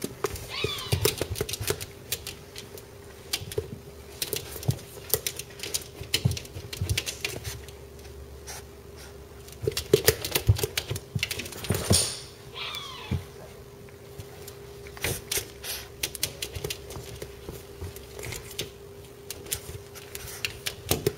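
A puppy's paws and claws tapping and scratching against window glass: an irregular clatter of quick clicks coming in bursts. A couple of short whines falling in pitch break in, about half a second in and again around the middle.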